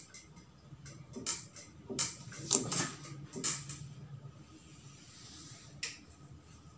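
Hairdressing scissors snipping through wet hair: a series of short, crisp cuts in the first four seconds and one more near the end, with a soft brushing hiss of hair being combed and handled in between.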